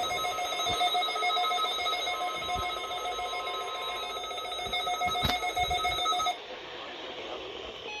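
A NOAA weather radio receiver's alert alarm sounding as a rapid, pulsing electronic beep. It cuts off suddenly about six seconds in, with a sharp click just before.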